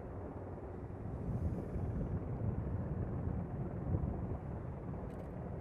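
Formation of NH90 helicopters and a CH-47 Chinook passing in flight: a steady low rotor and turbine rumble that swells slightly midway.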